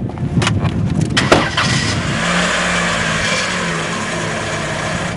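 A few sharp knocks and clunks, then from about two seconds in a car engine runs steadily with a low hum and a hiss.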